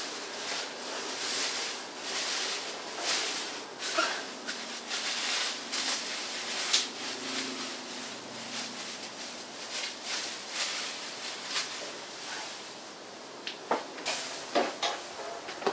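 Clear plastic masking sheet rustling and crinkling as it is pressed and smoothed into a car's wheel well, with a few sharper crackles near the end.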